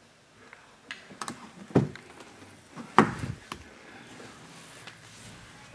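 Handling knocks on a car door. A few light clicks come first, then two heavier thumps about a second apart near the middle, the second the louder.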